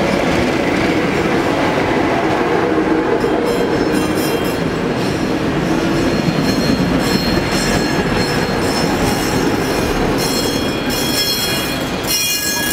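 Tatra trams rolling past over street rails: a steady low rumble of wheels on track, with high-pitched wheel squeal coming in about three seconds in and recurring on and off, loudest near the end.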